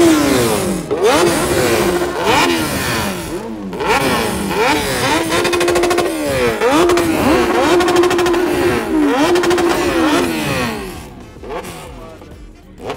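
Superbike engines being revved hard, over and over in quick, overlapping blips that rise and fall. In the middle a rev is held high twice for a second or more, and the revving dies down about eleven seconds in.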